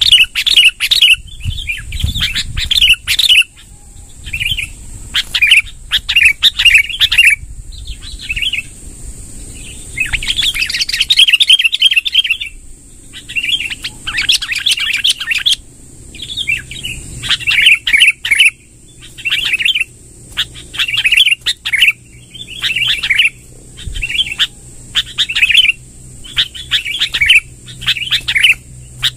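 Sooty-headed bulbul (kutilang) singing: loud chattering phrases repeated about once a second, with one longer rolling run about ten seconds in.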